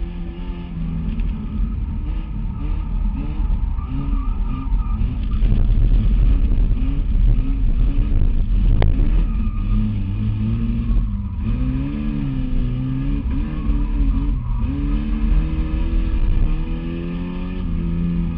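Race car engine heard from inside the cabin, revving up and dropping back again and again as the driver works through the gears. A single sharp click is heard about nine seconds in.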